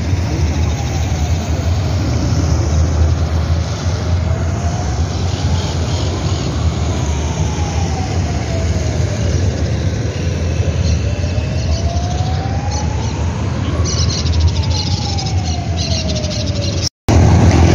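A siren wailing slowly up and down, a full rise and fall about every seven seconds, over a steady low rumble of road traffic.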